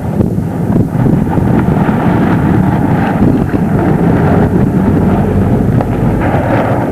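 Loud, steady wind buffeting the camcorder microphone, a rough low rumble with no clear pitch.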